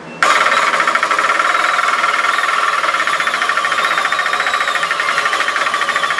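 Winch starting suddenly and running with a fast, even rattle as it draws a heavy English war bow down against a hanging spring scale toward full draw, the load climbing past 200 pounds.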